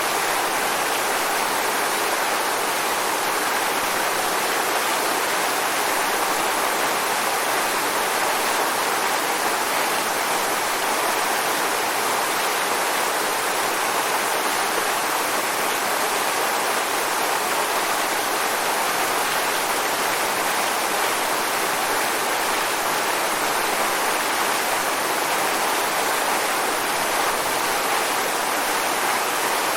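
Waterfall rushing in a steady, unbroken roar of falling water with no change in level.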